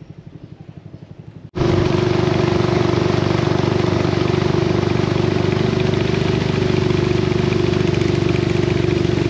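Small fishing boat's engine running steadily. For the first second and a half only a faint, even chugging is heard; then the engine comes in abruptly, loud, with a constant pitched hum.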